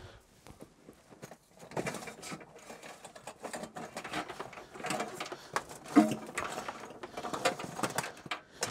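Electrical cable being pulled out of a van's wiring under the seat base: rustling and scraping of the wire with scattered clicks and knocks, one sharper knock about six seconds in.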